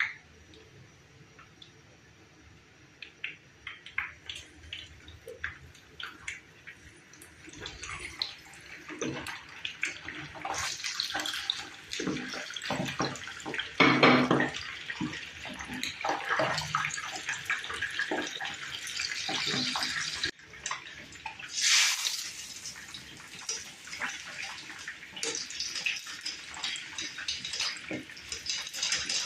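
Kitchen prep with water: water running and splashing, with many small clicks and knocks of things being handled, and a louder rush of water about two-thirds of the way through.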